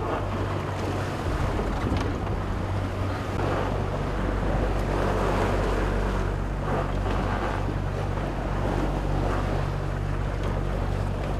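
Wind buffeting the microphone over water rushing and splashing along the hull of a sailing yacht under way in choppy sea. The water noise swells and eases as waves pass, over a steady low rumble.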